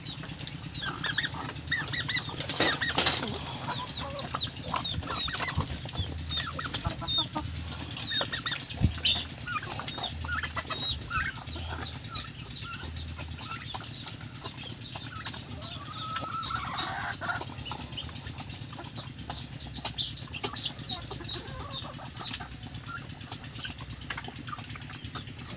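Chickens and turkeys feeding together at a trough, with many short high peeps and clucks overlapping throughout and a steady low hum underneath.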